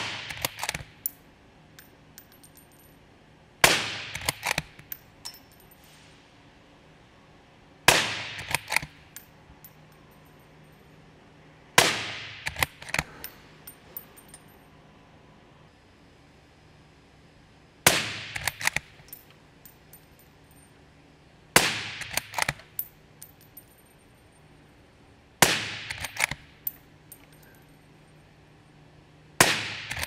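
Eight suppressed .308 Winchester shots from a bolt-action Tikka T3x rifle, about four seconds apart with a longer pause in the middle. The first four are through a SilencerCo Hybrid 46 suppressor and the last four through a Griffin Bushwhacker 46. Each shot is followed by a quick run of metallic clicks and clanks as the bolt is worked.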